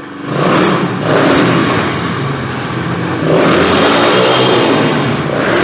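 Pit bike engine revving as the bike pulls away, opening up again a little after three seconds in; it is running cleanly again after a flooded carburettor.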